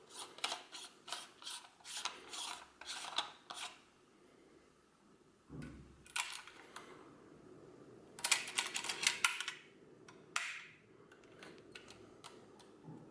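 Handling noise from a Canon Auto Zoom 814 Super 8 camera: its lens rings are turned and its controls worked, giving short rubbing scrapes and clicks. There is a dull knock midway and a quick run of clicks a couple of seconds later.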